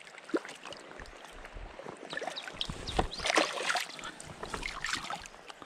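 Water splashing and trickling in a landing net held in a river as hands reach in to grab a small netted trout, with irregular splashes busiest around the middle.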